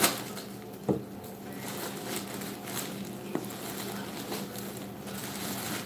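Plastic packaging crinkling and rustling as it is handled and pulled off a folded garment, with a few sharp knocks, the loudest one right at the start.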